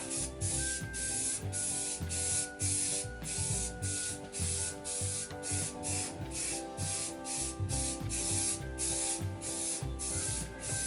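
Spray primer hissing from a spray can in short repeated bursts, about two a second, with music playing underneath.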